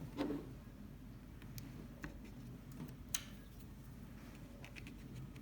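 A few faint, scattered plastic clicks as a plastic pry tool is worked into the seam of a Fimi Palm's snap-on back cover.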